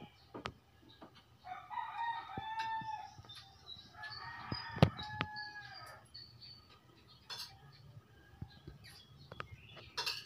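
A rooster crowing twice, each crow about two seconds long, with a sharp click during the second crow and a few faint ticks.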